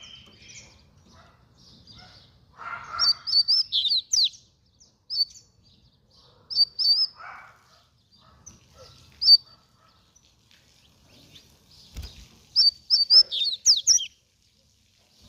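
Double-collared seedeater (coleiro) singing in quick bursts of high, rapid chirping notes. The phrases come about 3 s in, as a few short notes in the middle, and as a longer burst near the end, with pauses between them.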